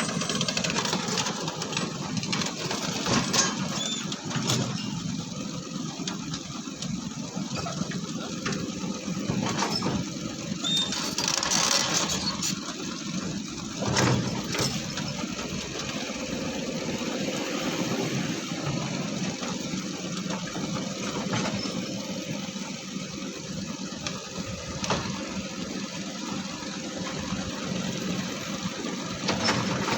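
Heavy diesel engines of an excavator and a dump truck running steadily, with a few knocks.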